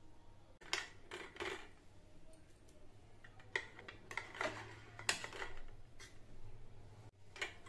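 Steel knife clinking and scraping against a stainless steel idli mould plate as steamed vadas are prised out and set on a steel plate: a handful of scattered light metallic clinks.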